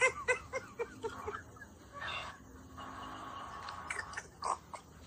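A person chuckling softly, a quick run of short laughs that fades out in the first second or so, followed by faint murmuring.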